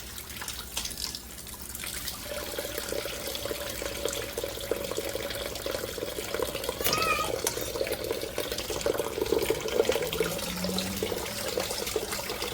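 Water running from a kitchen tap and splashing into the sink, starting about two seconds in, as a whole hen is rinsed.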